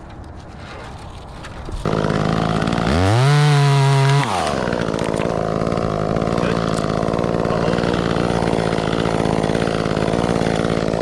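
Chainsaw starting up about two seconds in, revved briefly to full throttle for about a second, then dropping back to a steady idle.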